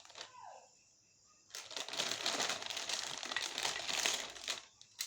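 Plastic packaging crinkling and rustling for about three seconds as a soldering iron kit is unpacked by hand.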